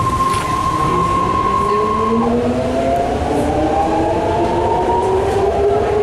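BART train heard from inside the car as it picks up speed: a steady high whine that drops about two seconds in, then several tones rising together, over a steady rumble of the wheels on the track.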